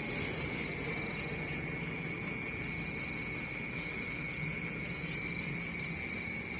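Steady night ambience: a low rumble of distant highway traffic under a steady high-pitched drone, with a faint low hum from a passing vehicle in the middle.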